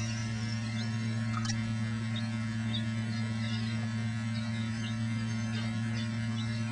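A steady low electrical hum, two unchanging tones throughout, with faint scattered ticks and chirps above it.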